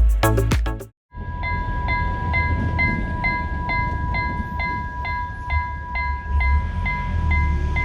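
Level crossing warning signal sounding: an electronic ding repeating about twice a second over a steady two-note tone, with a low rumble underneath. It starts about a second in, after a burst of music that cuts off.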